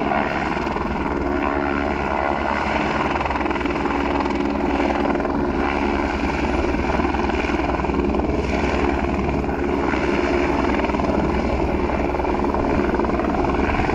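Light helicopter flying low: steady beat of the main rotor with the engine whine, running without let-up.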